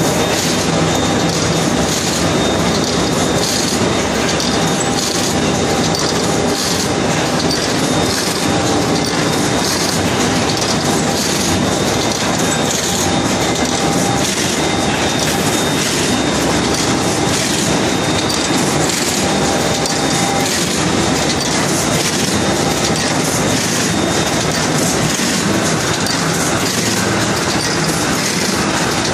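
Automatic corrugated carton folder-gluer and stitching line running: a loud, steady mechanical clatter of rapid, even clicks, with a faint whine over it.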